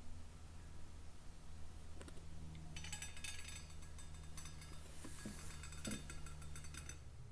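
Light metallic clinking and rattling of small parts being handled, in a quick, busy run from about three seconds in until just before the end, over a steady low hum.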